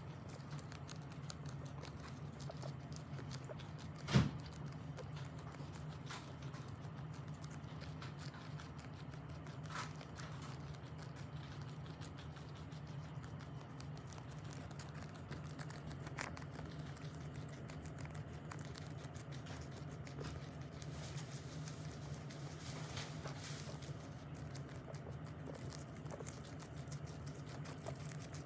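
Two guinea pigs chewing and tearing a cabbage leaf: a steady patter of rapid small crunching clicks, over a low steady hum. One sharp thump about four seconds in.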